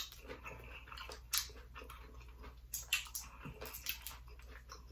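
Fingers peeling the shell off a cooked, sauce-coated head-on shrimp: soft wet crackles with a few scattered sharper clicks.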